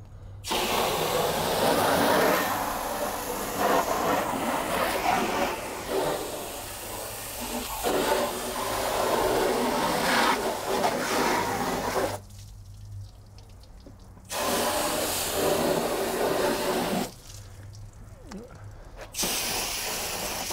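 A jet of water spraying into a truck's wheel well and undercarriage, rinsing off mud and cleaner as a steady hiss. It cuts off twice for a couple of seconds in the second half, then starts again.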